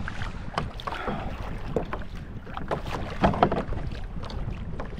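Wind buffeting the microphone and small waves slapping a kayak's plastic hull, with scattered clicks and knocks from handling the rod and gear, the loudest a little past three seconds in.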